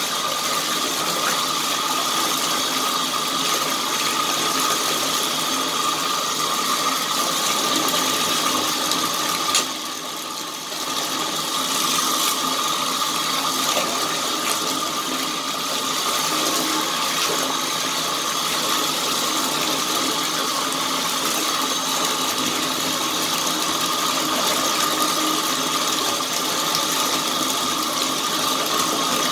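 Bathtub faucet running steadily, the stream splashing over hands and a sponge being squeezed and rinsed under it. The rush drops briefly about ten seconds in, then comes back.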